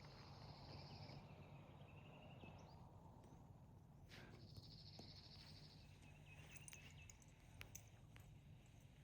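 Near silence with a songbird's faint high trills, two of them each about a second long, near the start and again midway, and a few soft chirps between them.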